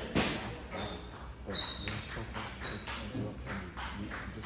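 Table tennis balls clicking irregularly on tables and paddles in a large hall, under a murmur of voices, with a few short high squeaks.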